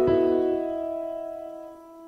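Background piano music: a last chord struck at the very start and left to ring, dying away.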